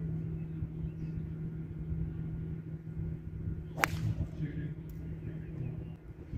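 A golf club striking a ball on a tee shot: one sharp crack about four seconds in.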